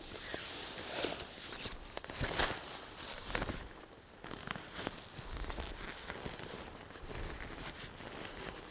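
Footsteps and rustling in dry leaf litter and twigs on a woodland floor, with irregular crackles and snaps as branches are pushed aside and handled.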